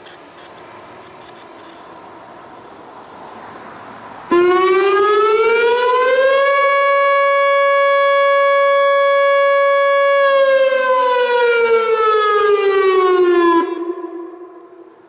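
Whelen WPS-2906 electronic siren sounding its noon blast. It starts suddenly about four seconds in, rises in pitch over about two seconds and holds a steady tone for about four seconds. It then falls in pitch over about three seconds and cuts off abruptly, leaving a brief echo. The uploader thinks it sounds like it has some blown drivers.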